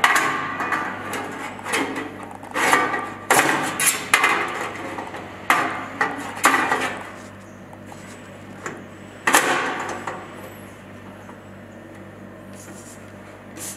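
Checkweigher's stainless-steel conveyor section being set onto its weighing frame and fitted by hand: a run of knocks, clanks and scrapes over the first ten seconds, then quieter handling.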